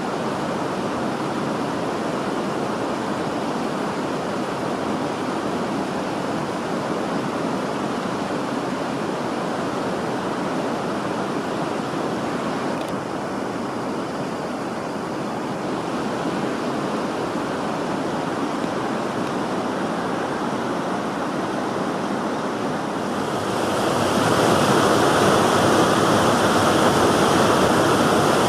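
Steady rush of flowing river water at a weir's intake. It grows louder and brighter near the end.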